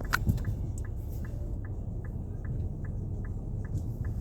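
Turn-signal indicator in a Nissan Pathfinder's cabin ticking at a steady pace of about two clicks a second, over a low road rumble, with one sharper click just at the start.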